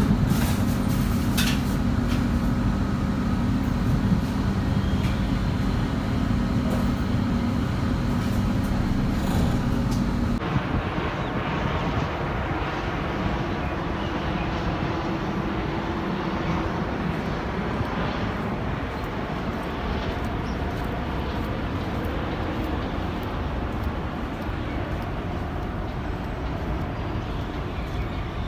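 Metro train carriage running with a steady low hum and a few constant tones. About ten seconds in, the sound cuts abruptly to a duller, noisier background without the hum.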